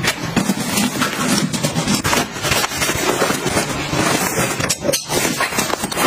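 Close rustling and crinkling of plastic and fabric as travel pouches and bags are handled and packed, thick with small crackles and taps.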